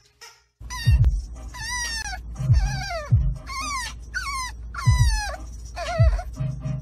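French bulldog puppy whining in a string of high-pitched cries, each sliding down in pitch, about one a second, over the low rumble of a car interior.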